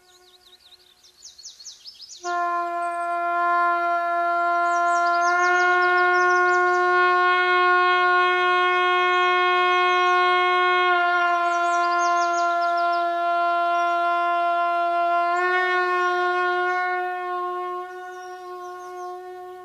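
Music: long, steady horn notes held at one pitch, coming in sharply about two seconds in and fading near the end, with small shifts in pitch partway through. High bird-like chirps sound over the horn a few times.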